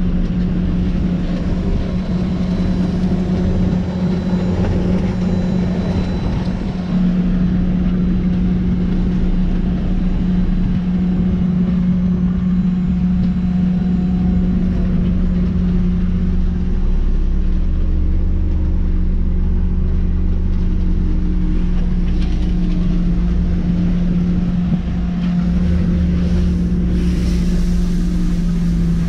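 Nitehawk street sweeper truck on an Isuzu cabover chassis running steadily while it sweeps, heard from inside the cab: a strong, steady hum over a low rumble.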